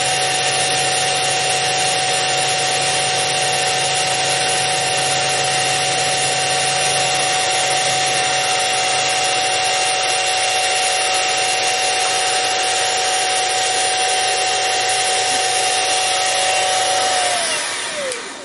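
Sieg X2 mini mill's spindle running with a steady whine as its end mill cuts a radius into an aluminium plate fed by hand against guide pins. Near the end the spindle is switched off and the whine falls in pitch as the motor winds down.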